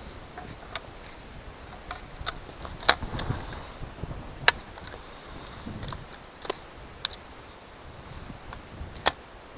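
Several sharp, irregular clicks and knocks, about seven in all and loudest near the middle, over a faint low rumble.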